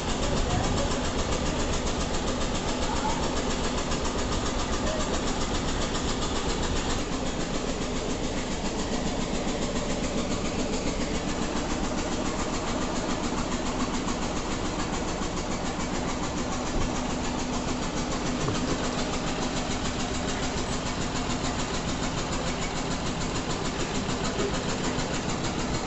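Steady running of an engine or motor: a continuous mechanical hum and rush that holds level without a break.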